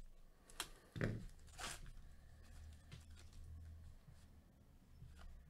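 A trading card pack's wrapper being torn open, with short crackling rips in the first two seconds, then faint handling of the cards.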